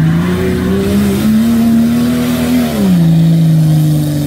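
Small 4x4 SUV's engine revving under load, its pitch climbing slowly, then dropping about three seconds in and holding steady lower.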